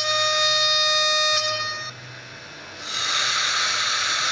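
Sound decoder of a ROCO model ÖBB 1014 electric locomotive sounding its horn through the model's small speaker: one blast of about two seconds. About three seconds in, a steady rushing hiss starts and keeps going.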